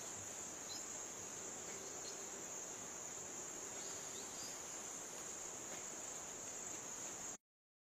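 Steady high-pitched insect chorus over faint outdoor hiss, with a few faint short chirps; it cuts off abruptly near the end.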